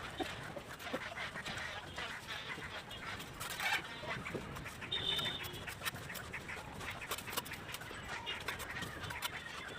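Bricklaying work sounds: repeated short taps and scrapes of a trowel on brick and mortar, with a bird calling briefly in the background about five seconds in.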